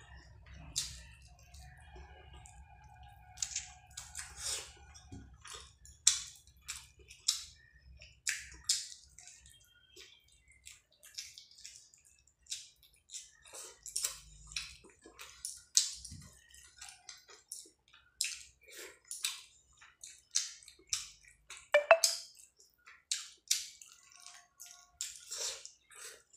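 Close-up eating sounds: fingers squishing and mixing rice with curry gravy on a plate, and wet chewing with lip smacks. These come as a run of short sticky clicks and squelches, a few a second, with one louder click about 22 seconds in.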